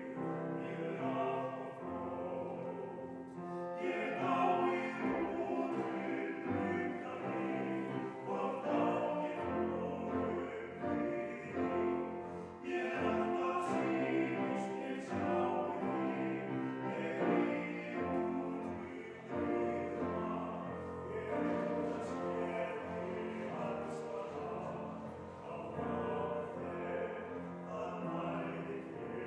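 Small choir singing slow, sustained phrases in a large church.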